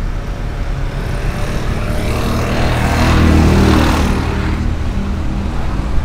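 A motor vehicle passing close by on the road: engine and tyre noise swell to a peak about three seconds in, then fade, over a steady low traffic rumble.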